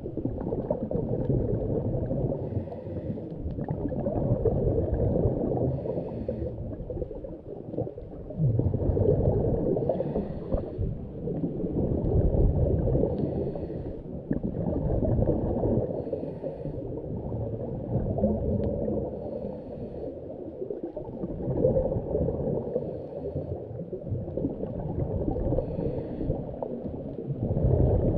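Muffled underwater rumble and gurgling of a diver's breathing and exhaled bubbles, with a faint hiss coming back every three to four seconds in a regular breathing rhythm.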